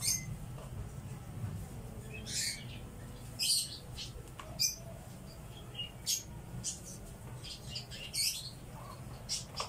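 Stitching thread pulled by hand through a white sneaker's rubber sole, with short high rasps at irregular intervals, about eight of them.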